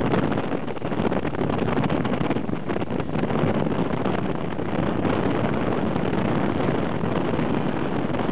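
Steady road and engine noise of a taxi driving through town streets, heard from inside the car, with some wind on the microphone.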